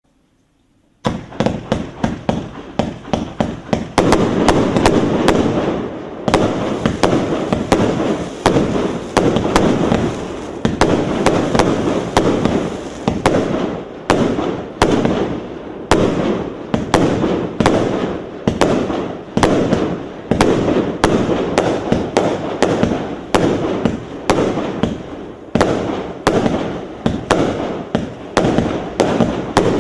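A 100-shot, 1.2-inch 'Mowgli' consumer fireworks cake firing. About a second in, sharp launch shots start at roughly three a second; from about four seconds they thicken into a dense, near-continuous barrage.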